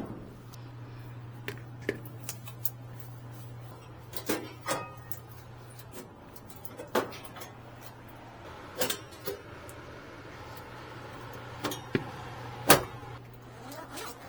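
Steady low hum with sharp knocks and clicks at irregular moments, about eight in all, the loudest near the end.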